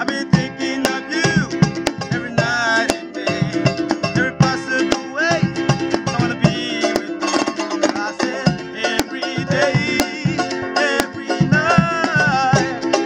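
Two ukuleles strummed in a lively Cook Islands island-music rhythm, with men singing loudly and a drum keeping a steady beat.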